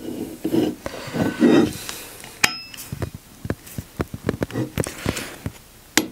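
Small metallic clinks and taps as a steel bearing race is worked by hand into the bore of a bronze propeller blade. One sharp ringing clink comes about two and a half seconds in, then a run of lighter ticks.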